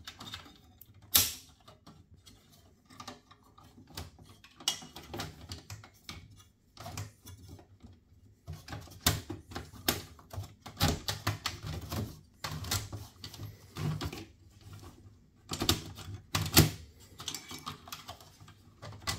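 Irregular plastic and metal clicks and knocks as cables are unplugged and the optical drive is pulled out of a computer case.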